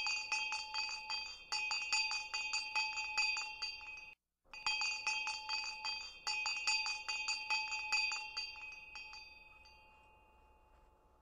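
Chimes ringing in rapid repeated strikes, several clear tones sustaining together, in two runs with a brief break after about four seconds, dying away near the end.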